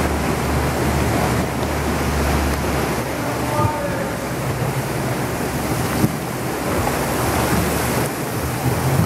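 Sea water sloshing and splashing around a small motorboat as its engine hums steadily, with wind buffeting the microphone; a single knock about six seconds in.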